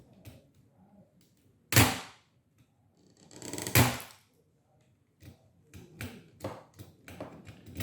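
Hand work on a small electronic controller: a sharp crack about two seconds in, a longer scraping rattle a little later, then a run of small quick clicks of a tool and plastic. These are the sounds of the buzzer being pried and broken off the circuit board.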